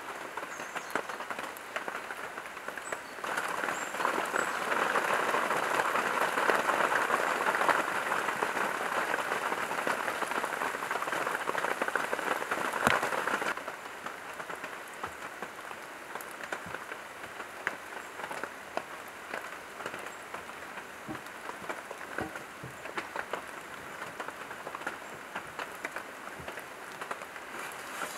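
Rain pattering steadily, with many scattered drips. It is louder from a few seconds in until about halfway, then drops off suddenly.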